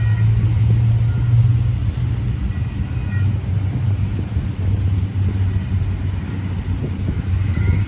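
Union Pacific double-stack freight train moving slowly, a steady low rumble and drone.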